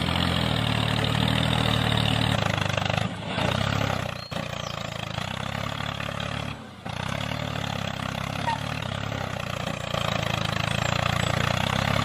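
A small engine running steadily at idle, cutting out briefly three times.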